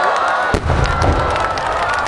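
A single sharp bang about half a second in, followed by a brief low rumble, over a crowd of voices shouting and cheering.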